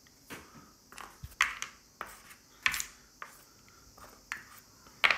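About nine light, separate clicks and taps of plastic wargaming miniatures being picked up off and set down on a tabletop as casualties are removed.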